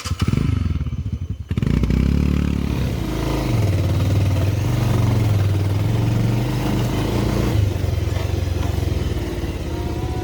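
Motorcycle engine running under way, its pitch dipping and rising as the throttle changes, with some rattle. It starts abruptly.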